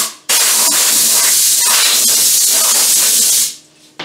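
Compressed-air blow gun blasting coolant and swarf off freshly machined aluminium parts in a mill vise: a loud, steady hiss that breaks briefly just after the start, then runs for about three more seconds and cuts off.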